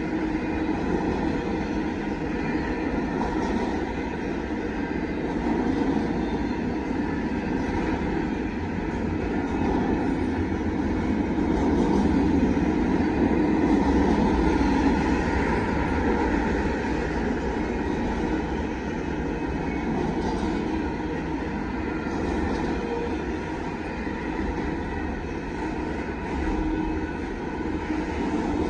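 Union Pacific freight train's double-stack container cars rolling steadily past, a continuous rumble of steel wheels on rail that grows a little louder about halfway through.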